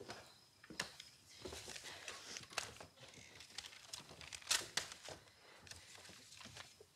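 Sheets of paper rustling and being handled at a desk, with scattered sharp clicks and light knocks; the loudest click comes about four and a half seconds in.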